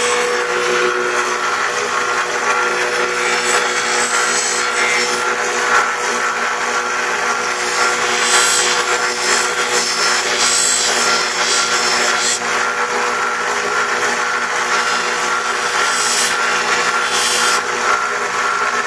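Electric sharpening machine running steadily with a motor hum, and a gritty grinding hiss that swells and fades in several passes as the steel AK-47 bayonet blade is drawn across the abrasive.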